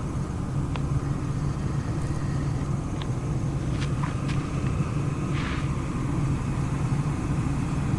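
A vehicle engine running steadily with a low hum, with a few faint clicks over it and a brief hiss about five and a half seconds in.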